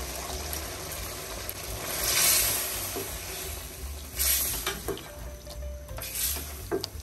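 Mutton and freshly added yogurt sizzling in hot oil in a steel pot as a ladle stirs them. The sizzle swells every couple of seconds, loudest about two seconds in.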